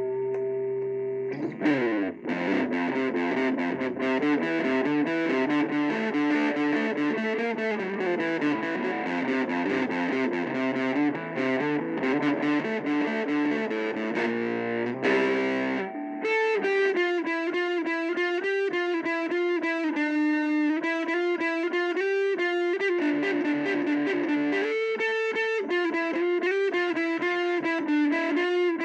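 Electric guitar played through a 4-inch mini guitar amplifier on its distortion setting. Distorted chords ring out, with a slide down near the start. From about halfway, it plays a single-note melodic riff.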